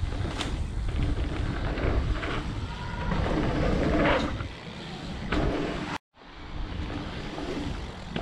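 Wind buffeting a helmet-mounted camera's microphone as a mountain bike rides dirt jumps, with the tyres running over dirt and a few short knocks from the bike. The sound cuts out for a moment about six seconds in, then picks up again.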